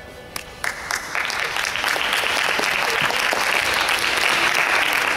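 Audience applauding: scattered claps about half a second in swell within a couple of seconds into full, steady applause.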